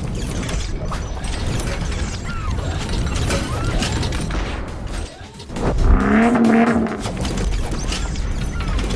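Animated-intro sound effects: a steady run of mechanical clicking and ratcheting, like parts and gears locking together. About two-thirds of the way through, a louder swell with a wavering tone rises over it.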